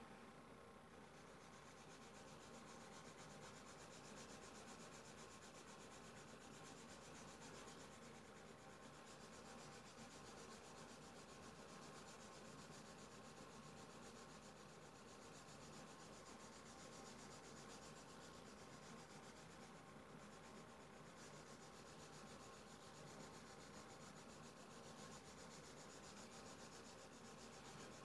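Faint rubbing of a pastel stick across drawing paper, steady strokes with brief pauses about eight and twenty seconds in.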